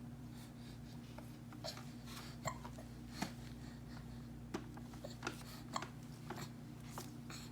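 Hiccupping: several short, sharp hiccups at uneven intervals, over a steady low hum.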